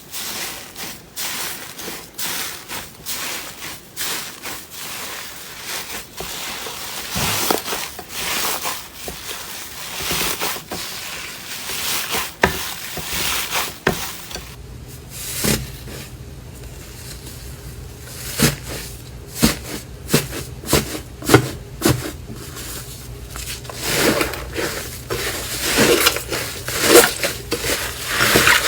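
Hands squishing, stretching and poking slime: a run of sticky pops, clicks and crackles. About halfway through it goes quieter under a faint low hum, then the pops come sharper and more spaced out.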